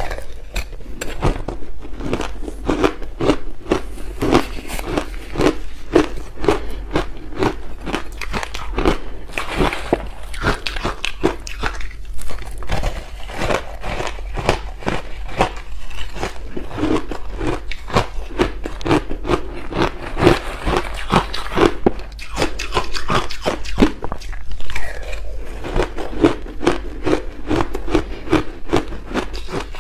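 Ice chunks coated in matcha tea powder and milk powder being bitten and chewed close to the microphone: a dense, continuous run of crisp, rapid crunches as the ice breaks between the teeth.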